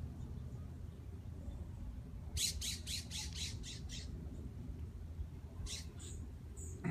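A jay giving a quick run of about eight harsh squawks, then one more squawk about a second and a half later, over a steady low background rumble.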